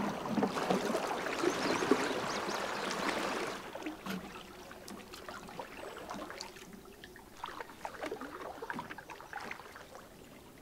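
Canoe paddle strokes and water swishing along the hull. About three and a half seconds in, this drops suddenly to a much quieter bed of faint water and scattered small ticks.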